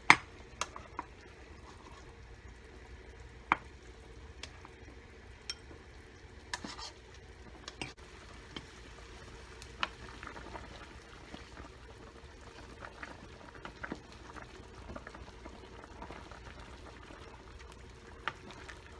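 Pot of chicken soup bubbling on the stove while fat is skimmed off the top, with scattered sharp clinks of a metal utensil against the pot.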